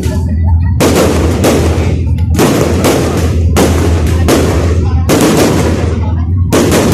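Fireworks going off in quick succession: about nine loud bangs, each half a second to a second after the last, each trailing off in a short rumble, over a steady low drone.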